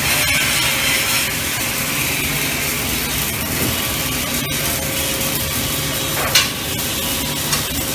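Steady hiss and crackle of automatic pipe welding at a pipeline joint, over a low machinery hum, with a sharp knock about six seconds in.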